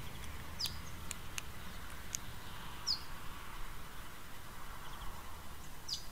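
Wild birds giving short, sharp, high chirps every second or so, a few with a quick downward slide, over a steady low background rumble.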